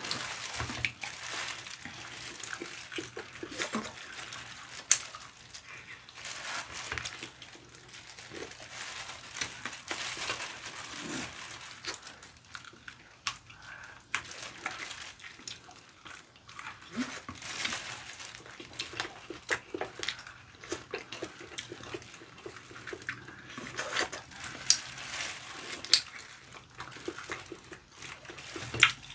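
Close-up eating sounds of two people chewing and smacking on spicy fried chicken: wet mouth noises and crisp bites, with sharp clicks scattered through.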